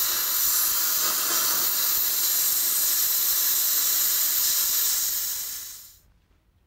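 Cutting torch hissing steadily as it cuts through a steel bumper bracket welded to a truck frame, then fading out about five and a half seconds in.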